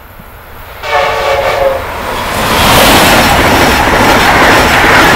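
An Amtrak Acela high-speed train's Nathan K5LA five-chime air horn gives one short blast of about a second, about a second in, its chord dropping in pitch at the end as the train closes in. The train then rushes past at speed, a loud, steady rush of wheel and air noise.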